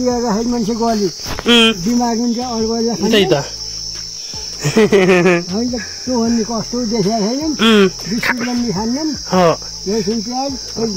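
A steady, high-pitched insect chorus drones without a break, with a man talking over it.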